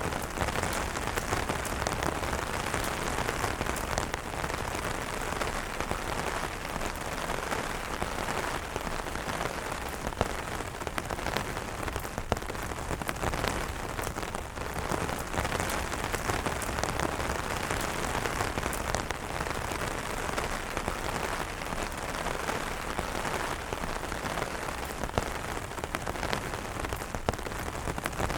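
Steady rain falling on umbrellas, a dense even patter of drops with many small taps throughout.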